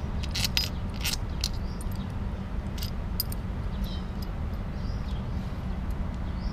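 Sharp metallic clinks and taps of hand tools on a Honda EX5 motorcycle engine's aluminium crankcase as it is taken apart, several in the first half, over a steady low hum.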